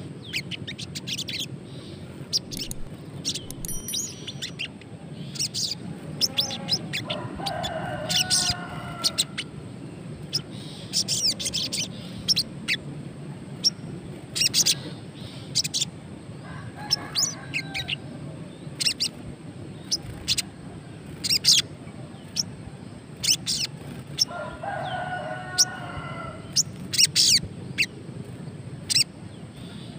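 A caged sogon sunbird giving sharp, high, short chip calls at irregular intervals. It is a wild-caught bird about two weeks into captivity that is starting to call but is not yet in full song. In the background a rooster crows three times in longer, lower calls.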